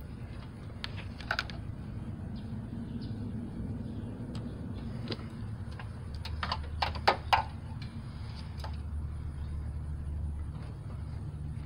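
A few light clicks and taps, one pair about a second in and a quick cluster of several about six to seven seconds in, over a steady low rumble.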